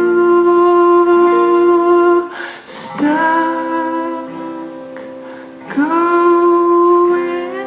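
Live acoustic music: a singer holds long notes, each new note about every three seconds sliding up into pitch, over plucked acoustic guitar chords.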